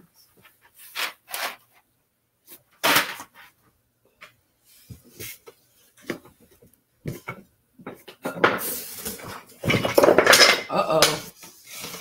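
Loose wooden parts of an unassembled beehive kit knocking and clattering as they are handled and taken out of their cardboard box. There are a few separate knocks at first, then a busier, louder stretch of clatter and rustling about three-quarters of the way in.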